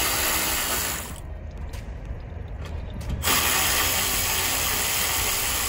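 Power ratchet running in two bursts, the first stopping about a second in and the second starting a little after three seconds, spinning bolts loose.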